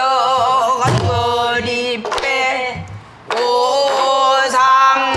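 A woman singing a Korean pansori-style danga in a strong voice with heavy vibrato, pausing once for a breath a little before three seconds in. About four sharp stick strokes on a buk barrel drum keep the beat under the singing.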